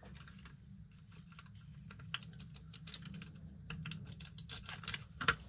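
Banknotes, coins and paper envelopes being handled on a table: a run of light, irregular clicks and rustles.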